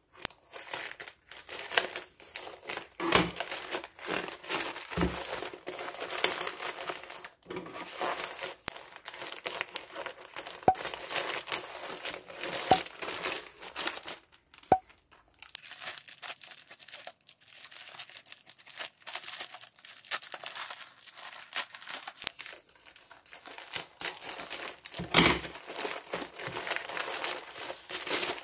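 Plastic packaging crinkling and rustling in irregular bursts as a black poly mailer bag is cut open with scissors and its plastic-wrapped contents are pulled out, with a few dull knocks and sharp clicks.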